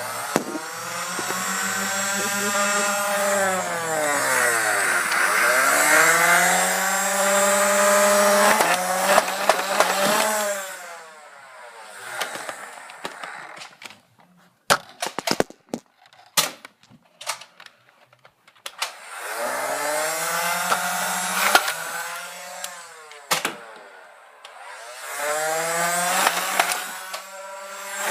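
A motor running, its pitch sliding down and up in two long stretches, with a run of sharp clicks or knocks in the gap between them.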